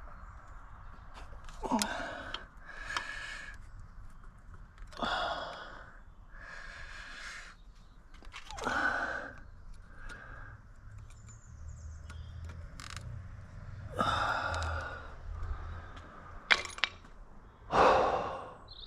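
A man breathing out hard and sighing several times while struggling with a plastic trim clip, with a couple of sharp clicks from the clip or tools near the end.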